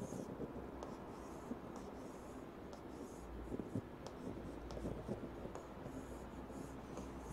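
Chalk scratching faintly on a chalkboard as lines are drawn, with a few light taps of the chalk against the board.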